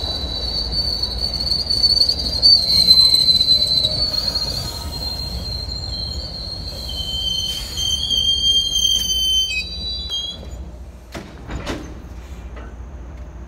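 Steel wheels of MBTA commuter rail coaches squealing as the train rolls along the curved platform track. It is a piercing high squeal, loudest a few seconds in. A second, lower squeal joins about halfway, and both stop about ten seconds in. A few sharp clicks follow near the end.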